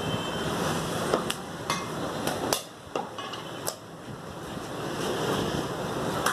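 Cleaver and pieces of mutton being set down on a wooden chopping block and a tiled floor: a handful of sharp knocks between about one and four seconds in, and one more near the end, over a steady rushing background noise.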